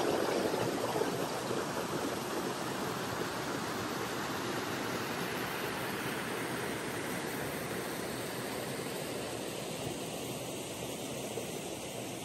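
Shallow rocky river rushing over small cascades: a steady rush of water that grows a little softer toward the end.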